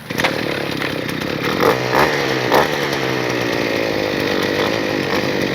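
Small two-stroke engine of a handheld gas earth auger revving up suddenly and running steadily at high speed, with a few sharp clicks about two seconds in.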